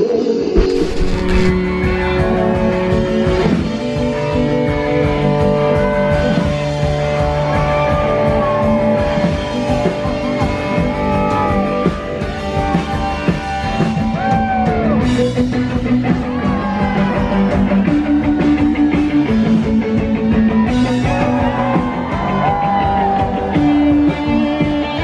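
Rock band playing live and loud, electric guitar notes bending up and down in pitch over the band.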